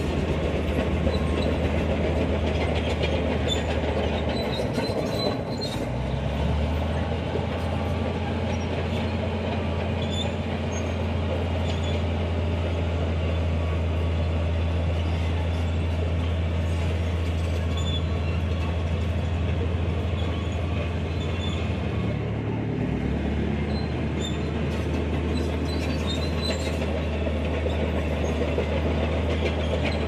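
Crawler bulldozer's diesel engine running steadily with the clanking of its steel tracks. The engine note shifts about five seconds in and again about three quarters of the way through.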